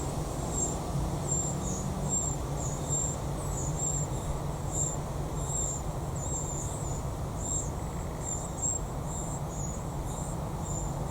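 An insect chirping: short, high chirps at a steady pace of about two a second, over a low steady rumble.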